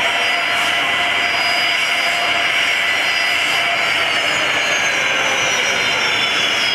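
Diamond DV-20 Katana light aircraft's engine and propeller running as it rolls along the runway: a steady hiss with a thin whine whose pitch begins to fall slowly about four seconds in.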